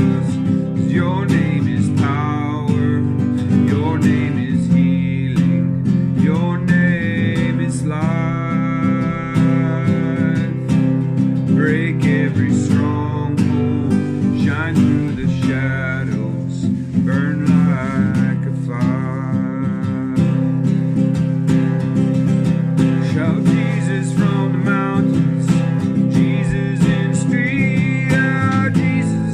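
A man singing a slow worship song over strummed acoustic guitar, his voice gliding through long held notes with no clear words.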